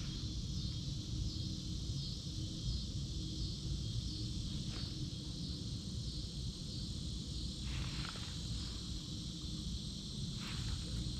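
A steady, high-pitched chorus of insects such as crickets, over a low rumble, with a few faint brief sounds about five and eight seconds in.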